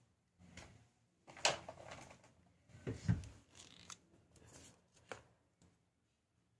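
Handling noise from fingers moving small metal jewellery over cloth: scattered rustles and light clicks, with a sharp click about a second and a half in and a duller knock about three seconds in.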